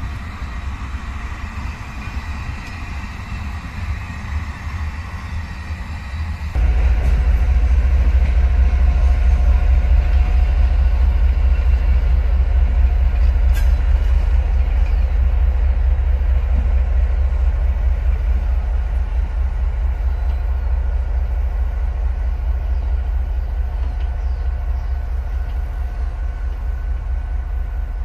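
Freight wagons rolling along the rails with a steady rumble. About six and a half seconds in it cuts to a louder, deep, steady running of the R22 and R31 diesel-electric locomotives, which slowly fades as they pull away.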